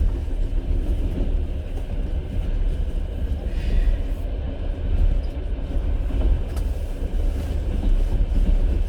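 Passenger train running along the rails, heard from inside the carriage: a steady low rumble of the wheels and the moving car.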